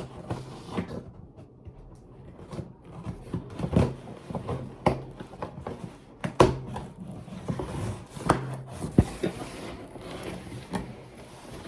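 A box being handled and worked open by hand: irregular knocks, scrapes and rustles, with several sharper knocks spread through.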